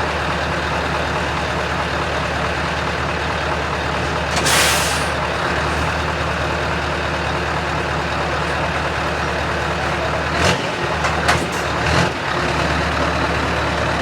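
Scania V8 truck engine running steadily with an open side pipe. About four and a half seconds in there is a brief sharp hiss of air, like an air brake releasing, and near the end a few short sharp bursts.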